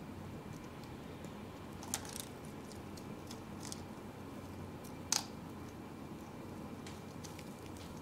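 Barred parakeet picking and nibbling with its beak at a cork perch: scattered small clicks and taps, with two sharper clicks about two and five seconds in, over a low steady hum.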